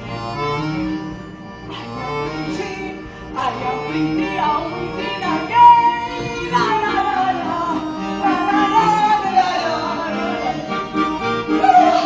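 Instrumental music with a melody that glides up and down in pitch through the middle.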